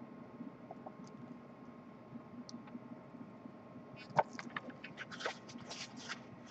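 Faint room hum, then from about four seconds in the paper pages of a booklet rustling and crackling as they are handled and turned.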